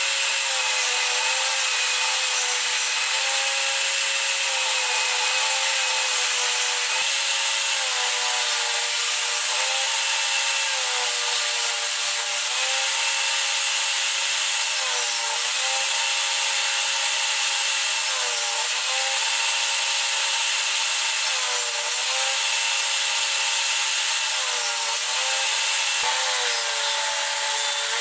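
Benchtop table saw running and ripping fir boards into strips, its motor whine over a steady hiss dipping briefly in pitch each time the blade bites into the wood, about every two to three seconds.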